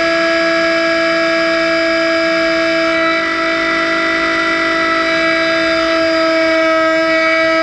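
Boat engine running at a steady high speed under way, a loud constant whine holding one pitch.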